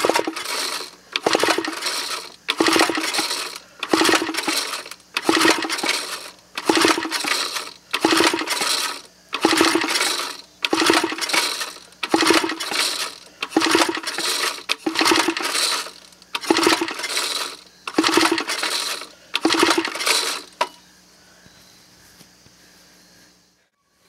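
Homemade piston-valve gasoline engine pull-started by its recoil starter, about fourteen pulls in a row at roughly one every second and a half, each pull turning the engine over briefly without it catching. The pulls stop about 20 seconds in.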